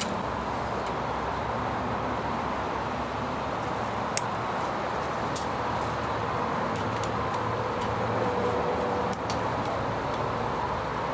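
A small electric fan running steadily, with a few light clicks as the wire and soldering iron are handled.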